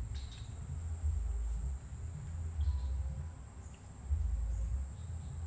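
A steady, high-pitched insect chorus, like crickets, runs unbroken, over a low, uneven rumble.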